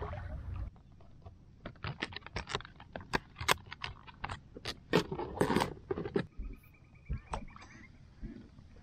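Rapid, irregular clicks and crinkles of a clear plastic NLBN soft-plastic lure pack being handled and opened, busiest about five seconds in.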